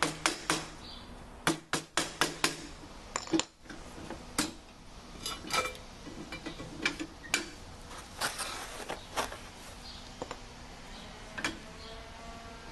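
Metal rail sections of a garage door opener being handled and fitted together: irregular clusters of sharp metallic clicks and clanks, several quick ones about two seconds in and a denser run about eight seconds in.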